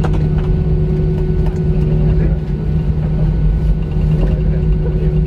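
Steady cabin drone of an Airbus A320 taxiing after landing: the jet engines at low taxi power give a constant low hum with a held tone above it, with a few light clicks over the top.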